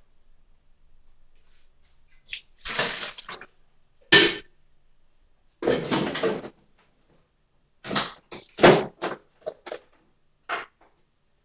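Kitchen sounds of coffee being made at a counter: two short noisy rushes, a sharp clink about four seconds in, then a quick series of knocks and clatters.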